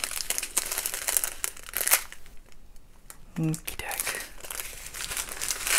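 Small plastic packets of round resin diamond-painting drills crinkling and rustling as they are handled and sorted. There is a short pause a little after two seconds in.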